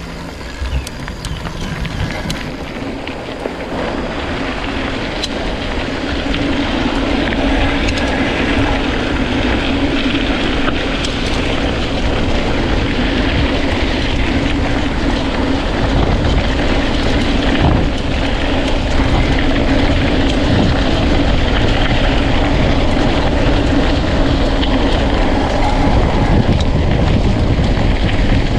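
Wind rushing over a handlebar-mounted action camera's microphone while a mountain bike rolls along a dirt trail, with steady tyre rumble and occasional knocks from bumps. It grows louder over the first several seconds, then stays steady.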